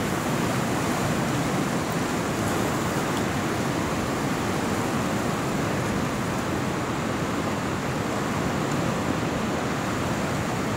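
A fast-flowing, muddy river running over rapids: a steady, even rush of water.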